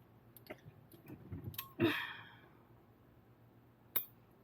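Quiet handling on a workbench: a few faint clicks, a short hiss about two seconds in that fades over half a second, and one sharp click near the end.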